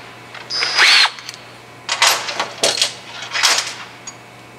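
Small metal tools clinking and clattering as they are handled and set down. There is a short metallic ring about a second in, then a quick string of clinks.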